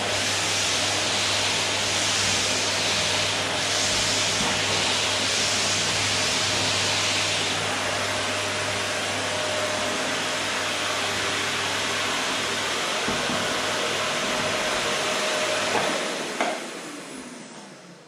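Electrolux canister vacuum cleaner running steadily with a low hum. About two seconds before the end a click as it is switched off, and the motor winds down with a falling whine.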